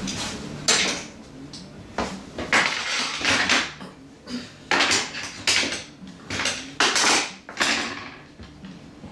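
One-handed bar clamps being handled on a tile floor and clamped onto a horn bow and its wooden form: a string of about a dozen sharp clacks and rattles, unevenly spaced.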